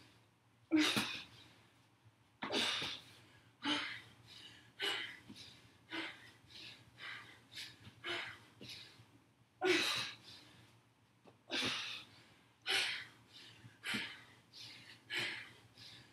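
A woman breathing hard from high-intensity exercise: a short, sharp breath about once a second, in step with her jump lunges.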